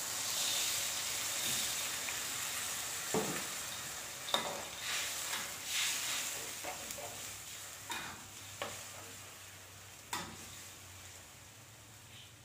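Water poured into a hot wok of frying tomato-and-potato sambal sets off a hissing sizzle, which fades as the sauce simmers. A metal ladle stirs and scrapes against the wok, with scattered clinks.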